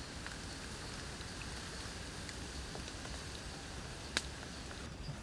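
Open wood fire crackling: a steady hiss with scattered small crackles and one sharp pop about four seconds in.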